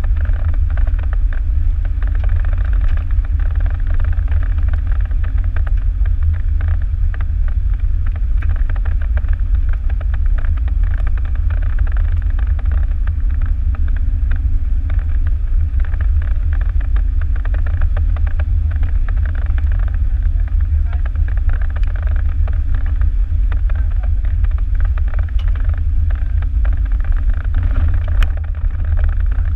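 A Jeep driving along a gravel road: a steady low rumble of engine and tyres on gravel, unchanging throughout.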